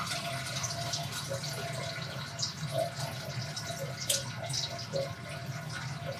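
Water draining down through a packed column of coarse grains into a glass aquarium tank: a steady trickle with scattered drips, slowed by the grain pack's lower permeability.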